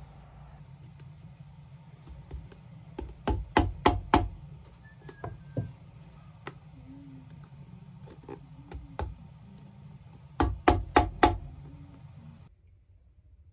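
Shoemaker's hammer striking the heel of a leather chukka boot: a quick run of about five blows a few seconds in, lighter taps after, then four rapid blows near the end.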